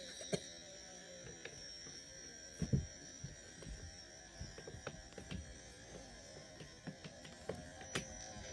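Faint room tone with a steady high-pitched whine, scattered small clicks and knocks, and one louder low thump about two and a half seconds in.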